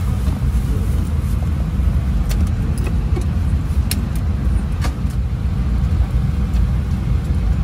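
Steady low rumble inside a vehicle, with a few light clicks and rattles scattered through it.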